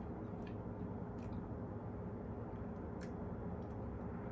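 Faint mouth sounds of someone chewing food: a few soft clicks, about a second in and again about three seconds in, over a steady low room hum.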